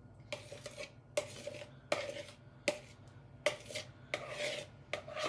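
A spoon scraping and stirring around the inside of a plastic mixing bowl of food: about seven scraping strokes, a little more than one a second, each with a short ring.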